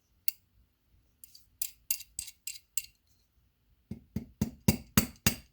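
Hammer tapping on a stuck valve in a motorcycle cylinder head to drive it out: a quick run of about six metallic taps, a short pause, then about seven harder taps near the end.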